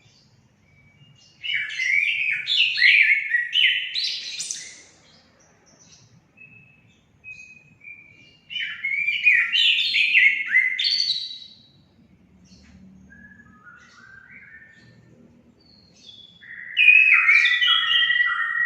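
Orange-headed thrush singing: loud phrases of quick, falling whistled notes, starting about a second and a half in, again around eight and a half seconds in, and near the end, with softer, scattered notes in between.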